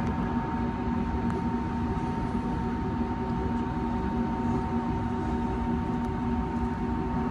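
Steady cabin noise inside an Airbus A320neo taxiing with its engines at low power: an even rush with a low hum and a thin higher whine held steady.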